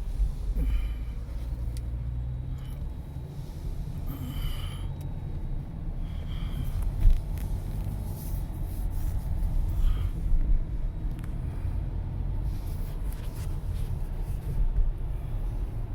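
Steady low rumble of a car driving along, with a few brief higher sounds and a sharp knock about seven seconds in.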